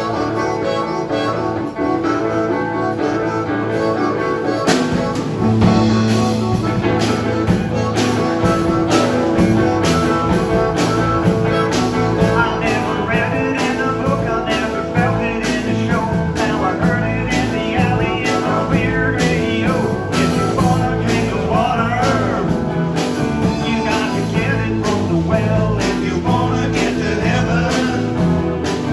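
Live blues-rock band playing: electric guitar, electric bass and drum kit, with a harmonica blown into the vocal microphone. The full band with a steady drum beat comes in about five seconds in.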